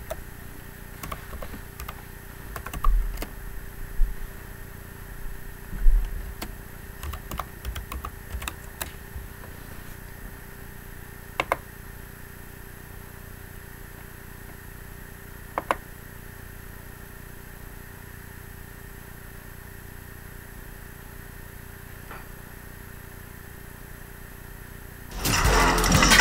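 Scattered clicks and taps from a computer keyboard and mouse, with a few low thumps, over a steady faint hum. The clicks thin out after about nine seconds, and a much louder noisy sound starts abruptly about a second before the end.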